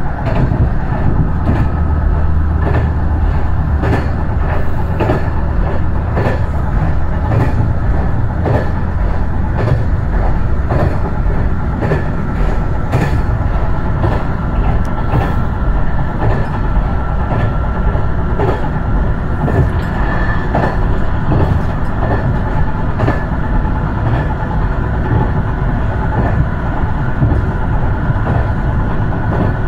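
Diesel railcar running along the line, heard from inside the rear of the car: steady running noise and a low engine hum, with frequent wheel clicks over the rail joints. The hum is strongest for the first ten seconds or so.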